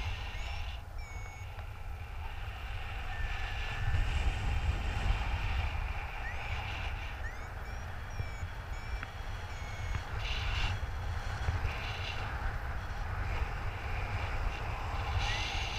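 Wind buffeting a GoPro's microphone in flight under a paraglider: a steady low rumble. Faint short, high chirps and brief beeps come and go over it.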